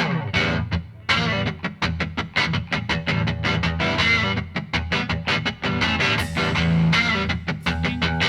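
Background music led by a guitar, with quick rhythmic plucked notes over a steady bass line.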